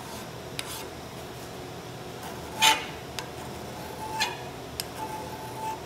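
Hand file scraping across the edge of a steel octagonal rifle barrel's muzzle, putting a small chamfer where the muzzle face meets a flat. A few separate strokes, the loudest a little under three seconds in, then a sharp click and short high ringing tones near the end.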